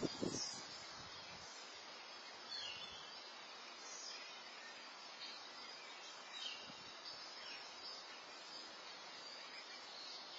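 Outdoor patio ambience through a Nest security camera's microphone: a steady hiss with a few faint, short high chirps scattered through it. A couple of brief low thumps come right at the start.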